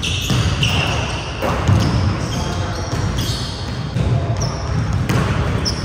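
Basketball bouncing on a hardwood gym court, echoing in a large hall, with people's voices.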